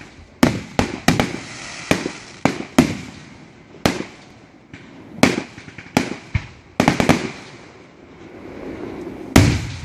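Aerial fireworks shells bursting overhead: more than a dozen sharp bangs at irregular intervals, each with a brief rumbling tail. Several come in a quick cluster about seven seconds in, and the loudest, a huge boom, comes about nine and a half seconds in.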